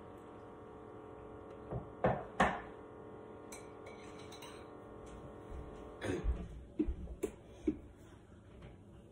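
Kitchen clatter: a few sharp knocks and clinks of kitchenware about two seconds in, then a run of knocks and thumps around six to seven seconds, over a steady hum that fades out about six seconds in.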